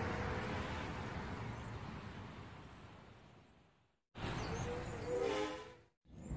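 Buzzing of small quadcopter motors that fades out over about four seconds. After a brief silence comes a second burst of buzzing, about two seconds long, with a wavering pitch.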